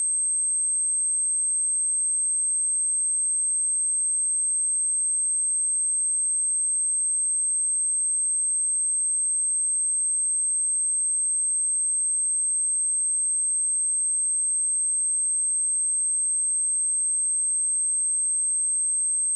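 Steady, unbroken, high-pitched 8344 Hz sine-wave test tone, a single pure tone played to test a speaker and shake water and dust out of it.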